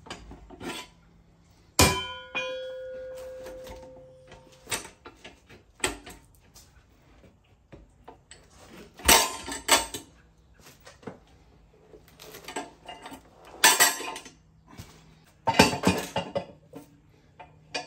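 Steel parts of a manual tire changer and its mount/demount bar clanking: one sharp metal clang about two seconds in that rings on for a couple of seconds, then scattered knocks and bouts of metal clatter as the tire and wheel are worked up and off the machine's post.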